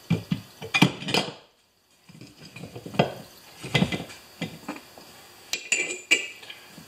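Metal clanks and knocks as a yard tractor wheel's steel rim is set down onto a vise-mounted tire remover and worked into place. The knocks come in clusters, with a moment of silence about one and a half seconds in.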